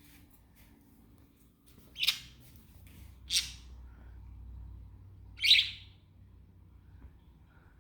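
Pet budgerigar giving three short, loud chirping calls: about two seconds in, again a second later, and once more two seconds after that.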